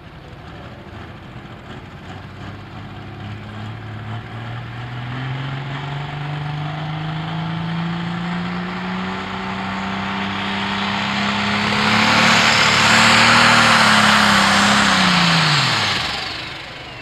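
Pro Stock pulling tractor's diesel engine (John Deere) revving up, its note climbing steadily and getting much louder and harsher as it pulls the sled. About 15 s in the revs drop quickly, with a high whistle falling in pitch as they wind down.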